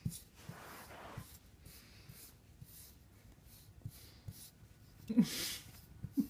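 Bristle brush scratching through a Siamese cat's fur, a rustling stroke early on followed by faint ticks. A louder rustling burst with a brief low voice-like sound comes a little after five seconds in.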